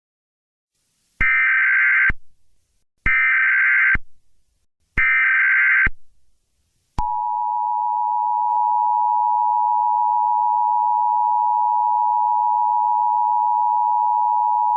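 Emergency Alert System header tones: three short bursts of SAME digital data warble, each about a second long and about two seconds apart, then from about seven seconds in the steady two-tone EAS attention signal, held without a break.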